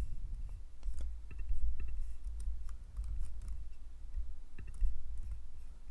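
Irregular clicking of a computer mouse and keyboard keys, over a low steady hum.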